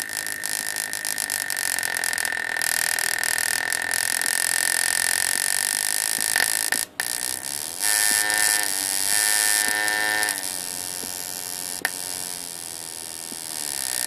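A 555-timer and MOSFET driver pulsing a microwave oven transformer that powers a magnetron, making a steady high-pitched electrical whine over a buzzing hiss while the magnetron puts out a small RF plasma flame at its antenna. The sound cuts out for an instant about seven seconds in, and its tone shifts for a couple of seconds soon after.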